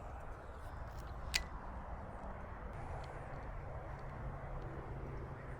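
A low, steady engine hum with a slight shift in pitch about halfway through, and a single sharp click about a second and a half in.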